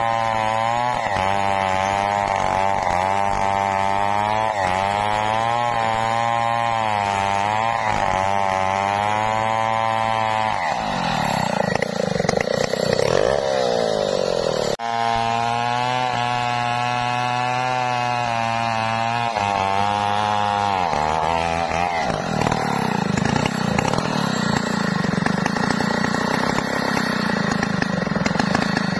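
Two-stroke chainsaw running at high revs, cutting into the base of a jabon tree trunk, its engine note wavering as the chain bites into the wood. The engine revs up and down a little before halfway and again about two-thirds in.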